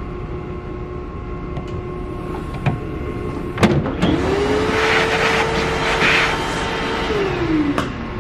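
Haas Desktop Mill running with a steady machine hum. About three and a half seconds in a click is followed by a motor whirring up to a steady pitch, and it winds down near the end. In the middle there is a hiss of air, heard as two surges, as the chips are blown off the finished part.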